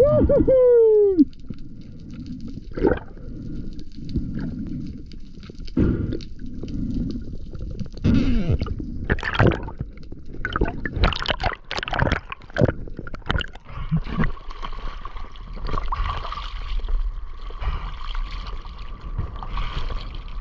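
Water gurgling and sloshing around a spearfisher's camera, with irregular knocks and bursts of bubbling. It opens with a short falling squeal, and a steady hum joins about two-thirds of the way through.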